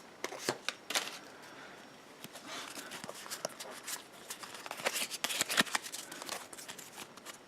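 Pokémon trading cards being handled and flipped through, with irregular light clicks and soft rustles of the cards against each other.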